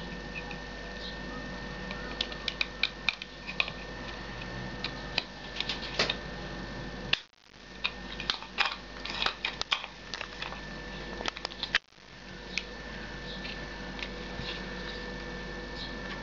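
Irregular small clicks and taps of fingers handling a rechargeable battery pack and its circuit board and pressing them into a hair clipper's plastic housing, over a steady faint hum. The sound drops out briefly twice.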